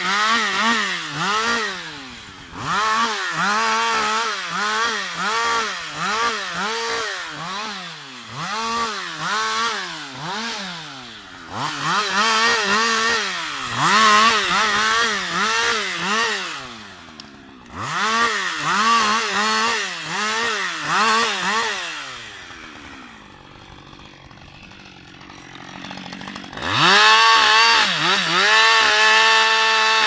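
Husqvarna 560XP two-stroke chainsaw limbing a fallen tree, revved up and down in short bursts about once a second as each branch is cut. Near the end it drops to a low idle for a few seconds, then goes back to full throttle and holds steady.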